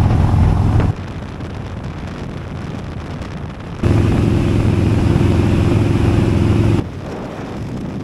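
Harley-Davidson motorcycle engine running steadily at highway cruising speed, with wind rushing past. It is loud about the first second and again from about four to seven seconds, and quieter and mostly wind in between.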